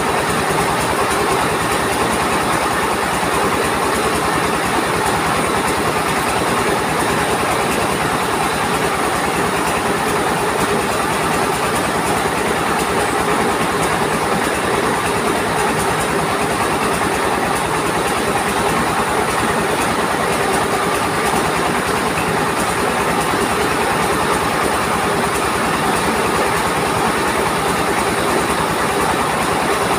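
A trailer-mounted mobile rice mill running steadily: its engine drives the huller and polisher by belt while grain is fed through, giving a continuous rattling mechanical din.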